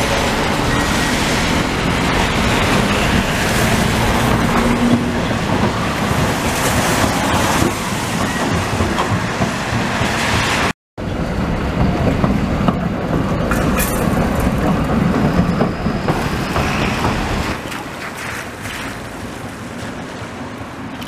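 Historic FVV 'Bengáli' articulated tram running on wet street track: steady wheel-on-rail rumble and running noise, mixed with the hiss of traffic on the wet road. The sound cuts out completely for a moment about halfway through, then the same kind of tram and wet-road noise resumes and grows quieter near the end.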